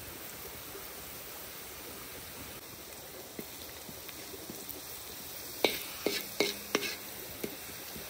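Metal cooking utensils knocking and clinking against cookware: a run of sharp, separate clinks starting a little past halfway. Under them is a steady rushing noise like flowing water.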